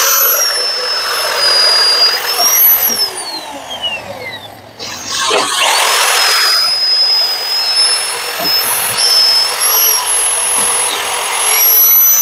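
DeWalt magnetic-base drill running and drilling into a steel truck chassis rail, with a high, steady motor whine. About four seconds in the whine falls and the sound nearly cuts out, then it winds back up and runs on steadily.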